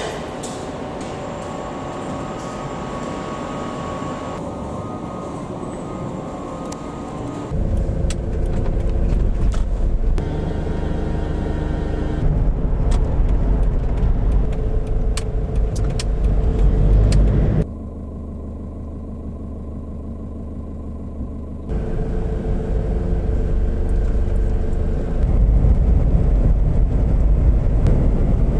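Camper van driving on the road: a steady low rumble of engine and tyre noise, in several short clips that cut abruptly from one to the next.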